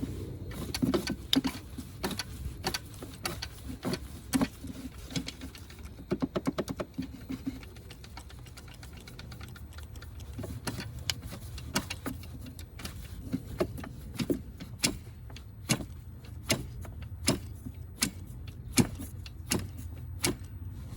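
A long series of sharp metallic clicks over a low steady hum. There is a quick rattling run of clicks about six seconds in, then evenly spaced clicks, one or two a second, near the end.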